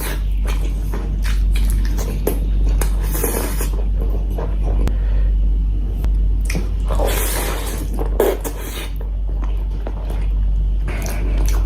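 Close-miked eating sounds: irregular mouth noises and clicks, with a longer burst about seven seconds in, over a steady low hum.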